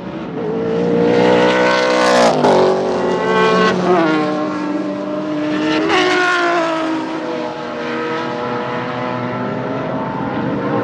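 BMW E30 race cars' engines at full throttle as the cars pass, the pitch climbing and then dropping sharply at each of several gearchanges.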